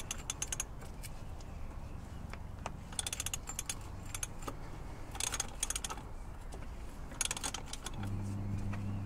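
Ratchet wrench on a 36 mm hex socket working the plastic oil filter housing loose: four short bursts of rapid pawl clicking on the return strokes, about two seconds apart. A low steady hum comes in near the end.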